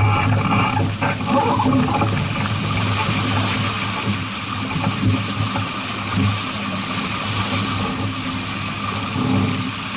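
Steady rushing noise of water and wind on a moving boat, with a low steady drone underneath.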